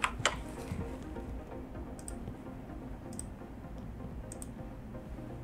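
Computer keyboard and mouse clicks: two sharp clicks at the start, then three faint light clicks about a second apart, over a low steady background hum.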